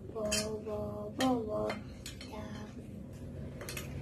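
Metal fork clinking against ceramic bowls and plates while chicken is dipped in beaten egg and coated, with several quick clinks in the first couple of seconds and two more near the end.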